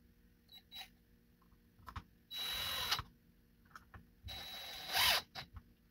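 A small electric motor whirring in two short bursts of under a second each, with clicks and taps of handling between them.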